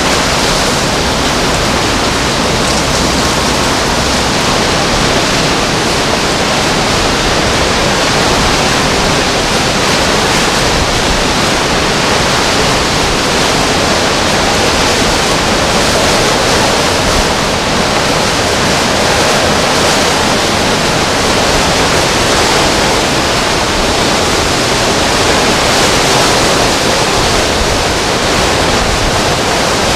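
Hurricane-force wind with driving rain: a loud, steady rushing noise that barely varies.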